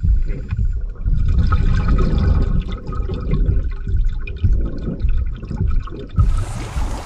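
Muffled underwater noise from a camera submerged in a pool: dense, irregular low rumbling and bubbling from scuba divers breathing and moving nearby, with a faint steady tone over it. About six seconds in it changes abruptly to a brighter, even hiss of water.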